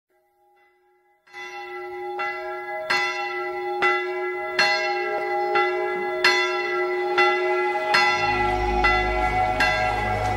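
A church bell struck over and over, about once every 0.8 seconds, each stroke ringing on into the next. It starts about a second in, and a low rumble joins near the end.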